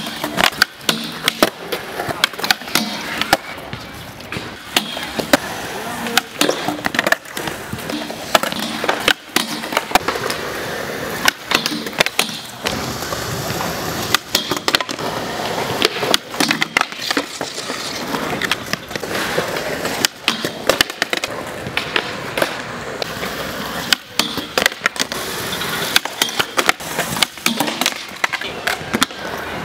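Skateboard wheels rolling on concrete, with many sharp clacks as the board pops and lands, and metal trucks grinding on a steel handrail on repeated frontside 5-0 attempts.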